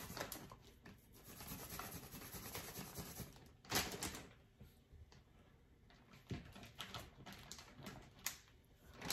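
Fresh ginger being grated on a handheld grater, a faint rasping scrape for the first few seconds, followed by a knock and a few light clicks.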